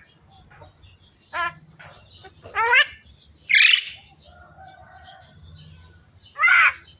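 Javan myna (jalak kebo) calling: about four loud, separate calls a second or more apart, some sliding up in pitch and one a harsh hiss, with softer warbling between.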